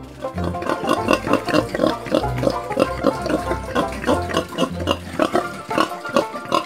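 Domestic pig grunting in a rapid string of short grunts, several a second.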